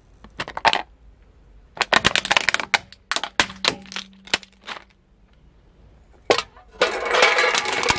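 A plastic toy cracking and splintering under a slowly rolling car tyre, in several bursts of sharp cracks. Near the end a single sharp crack and then a long dense crunching with a metallic ring as a row of aluminium drink cans is run over.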